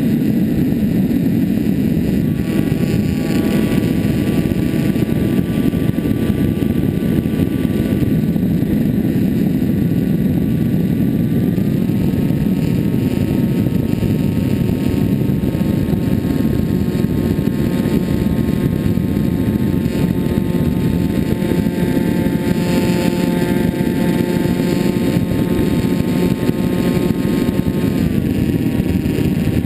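Onboard sound of a Finwing Penguin RC foam plane in flight: a steady rush of air over the plane with the electric motor and propeller whining above it. The motor's pitch steps up a little about twelve seconds in and drops back near the end as the throttle changes.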